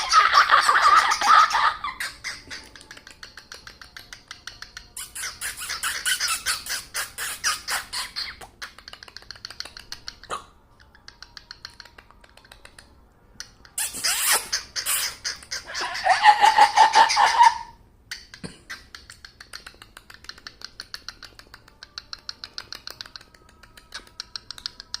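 Cockatiel making rapid clicking, chattering noises in bursts, with louder squeaky calls near the start and about two-thirds of the way in. Soft fast ticking runs between the bursts.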